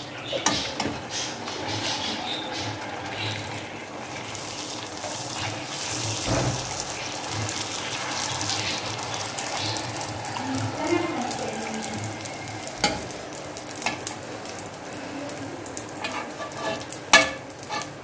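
Discs of gol gappa dough sizzling steadily as they deep-fry in hot oil, with hot oil spooned over them so they puff up. A steel spoon clinks sharply against the aluminium wok a few times, loudest near the end.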